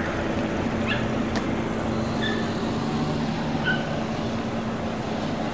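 Boat engine running steadily under way, a low even hum over the rush of water and wind. A few short high chirps sound about two and three and a half seconds in.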